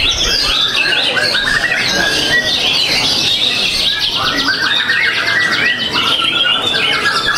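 White-rumped shama (murai batu) singing loudly, a continuous varied song of whistled phrases broken by rapid trills.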